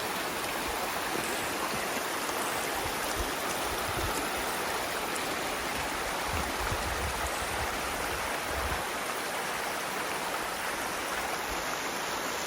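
Steady rush of a mountain stream of running water, with no change in level.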